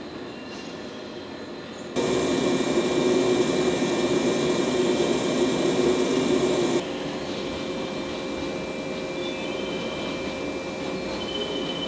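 A standing JR West 115-series electric train's equipment running with a steady hum and a thin whine. It turns abruptly louder and rougher about two seconds in, then drops back just before seven seconds.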